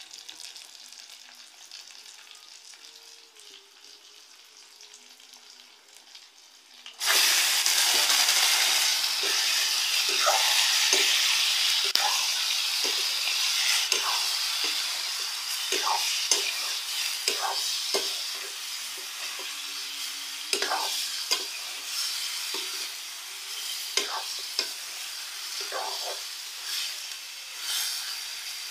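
Frying in a kadhai: a faint sizzle, then about seven seconds in a sudden loud sizzle as raw pork pieces hit the hot oil with the onions. The sizzle slowly settles while a spatula scrapes and stirs the meat in repeated strokes.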